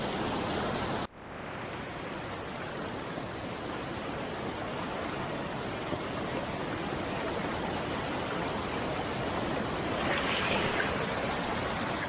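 Fast-flowing stream rushing over rock, a steady rush of water close to the microphone. It cuts out for an instant about a second in, then carries on.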